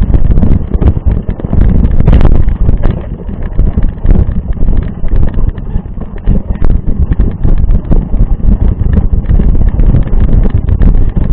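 Loud, gusty wind buffeting the microphone, with many short knocks and rattles, as from a mountain bike ridden over a rough trail.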